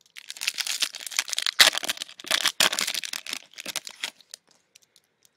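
A trading-card pack wrapper being torn open and crinkled, with the cards handled, in a dense run of irregular crackles for about four seconds.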